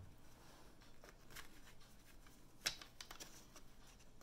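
Wooden frame strips handled and pushed together on a plastic-coated tablecloth: faint scraping and small taps, with one sharp click about two and a half seconds in as the pieces are fitted together.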